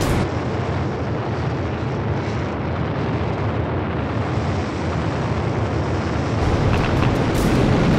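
Sound effect of the sky crane descent stage's rocket thrusters firing: a steady rushing noise over a deep rumble, which grows a little louder about six and a half seconds in.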